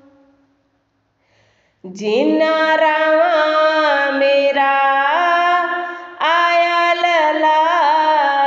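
A woman singing a slow devotional Punjabi shabad in long held notes that slide between pitches. The voice comes in about two seconds in after a short silence and breaks off briefly near six seconds before carrying on.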